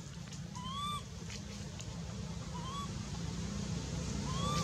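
Baby macaque giving three short, high, rising-and-falling cries about a second and a half apart, over a low rumble that grows louder near the end.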